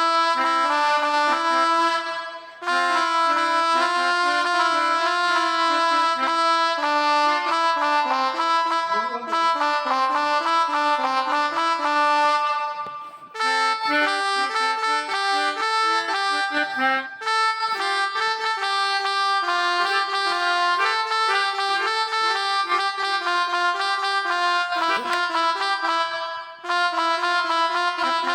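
Melodica (pianika) sound from a phone app, playing a steady run of held notes, often two or more at once, in a telolet-style bus-horn tune, with a few short breaks between phrases.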